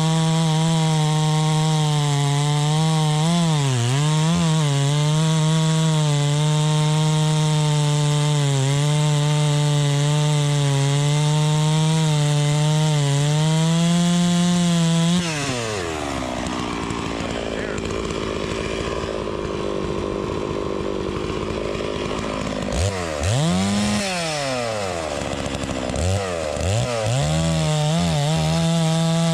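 Neotec clone of the Stihl MS 660 two-stroke chainsaw held at a steady high rev for about fifteen seconds. Then its pitch drops sharply and the sound turns rough as the saw bogs down under load, as in a cut. It briefly revs up and falls again, then climbs back to full revs near the end.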